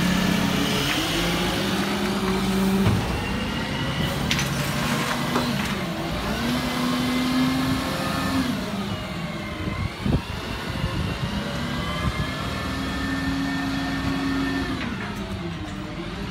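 Diesel engine of a refuse collection lorry pulling away, revving up through the gears: its pitch climbs, holds, then drops at a gear change, twice over, with a sharp knock at about ten seconds. It grows a little fainter as the lorry moves off.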